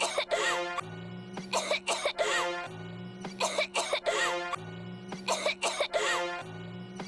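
Coughing over a musical backing: the same short loop of cough bursts and a pitched, gliding tone repeats about every two seconds, roughly four times.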